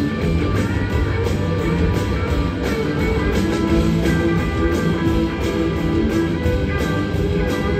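Live rock band playing: electric guitars through Fender amplifiers over a steady drum beat.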